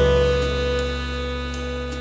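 Instrumental outro music: one held chord sustaining and slowly fading.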